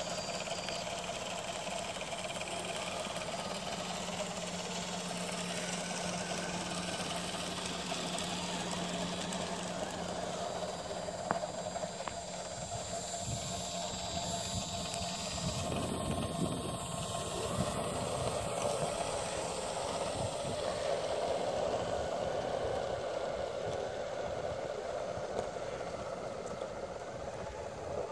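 Radio-controlled 6x6 truck with a snowblower attachment running as it clears snow: a steady mechanical hum and whir over an even hiss. The low hum drops out about halfway through.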